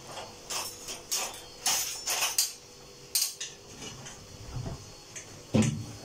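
Metal kitchen utensils and cookware clattering as they are taken from a dish rack and handled: a string of sharp clinks and knocks, then a heavier knock about five and a half seconds in.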